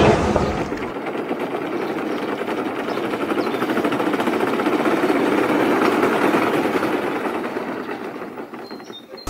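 Opicina tram running on its rails with a fast, even mechanical rattle, fading away near the end.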